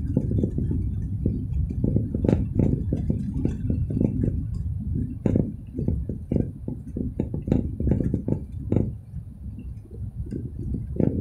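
Low rumbling road noise of a moving car, heard from inside the cabin, with many small knocks and rattles throughout.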